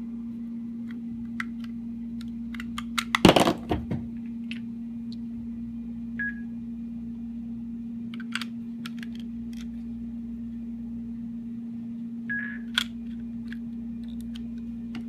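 Scattered clicks and small knocks as an iPV4 vape box mod is handled and its fire button pressed, with a louder flurry of clicks about three seconds in. The mod gives no response and won't power on. A steady low hum runs underneath.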